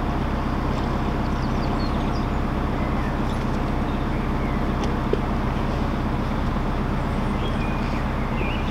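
Narrowboat diesel engine running steadily at cruising speed, an even low hum, with faint bird chirps above it.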